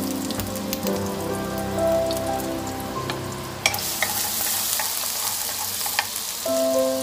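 Chopped garlic sizzling in hot oil in a non-stick wok, with a few sharp clicks of a wooden spatula as it is stirred. Light background music plays over it in the first half and again near the end.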